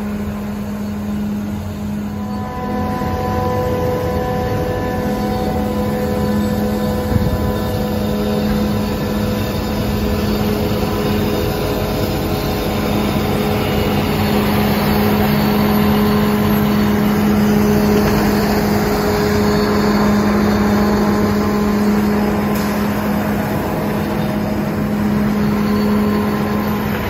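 TYMCO regenerative-air street sweeper running as it sweeps, a steady engine and blower hum with steady whining tones over the rush of air and brooms. It grows louder about two seconds in and is loudest midway.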